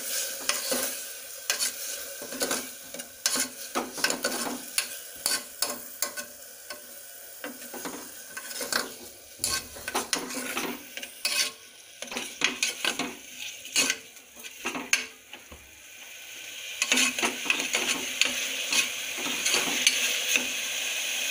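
Metal spoon stirring chopped onion and tomato frying in a pressure cooker: repeated clicks and scrapes of the spoon against the pot over a sizzle. The sizzle grows louder and steadier about three quarters of the way through.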